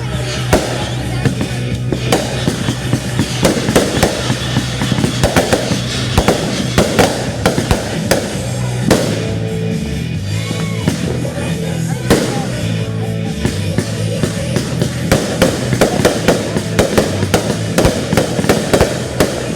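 Fireworks going off in quick succession, a dense run of bangs and crackles, over loud music with a stepping bass line.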